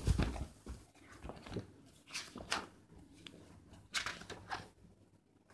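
Pages of a paper book being leafed through and handled: a series of irregular rustles and soft knocks.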